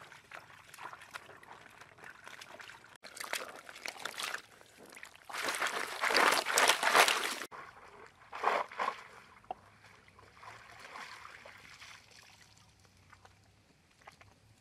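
Water sloshing and splashing as a person wades and works their hands through shallow pond water. The splashing comes in irregular bursts, loudest for about two seconds around the middle, where it stops abruptly, followed by a few smaller splashes.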